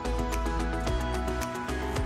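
Background music with a steady beat: held bass notes under layered melody tones and regular percussion hits.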